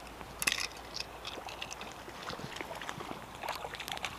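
Hooked brook trout splashing at the surface of the water while being played on a fly line toward the net: a sharp splash about half a second in, then scattered small splashes and crackles that grow busier near the end.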